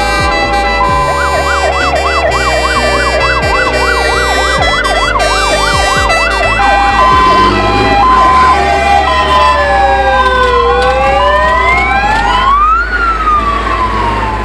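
Several fire-engine sirens sounding together: fast yelping wails for the first half, then slower rising and falling wails with a two-tone hi-lo siren alternating between two notes from about seven seconds in.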